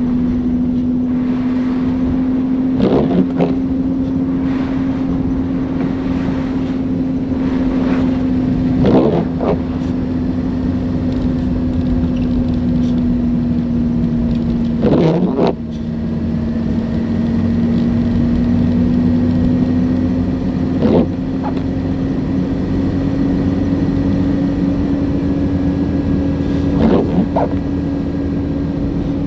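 Car driving: a steady drone with a held tone that drifts slightly in pitch, and a brief noise about every six seconds.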